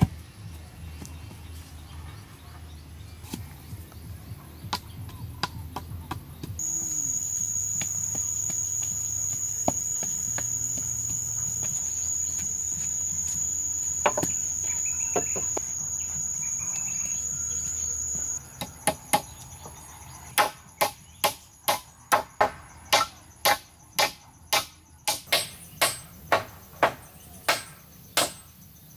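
A steady, high insect trill runs for about twelve seconds, then cuts off. Right after it comes a run of sharp tool strikes, about two a second, as in chopping or hammering at the shelter work.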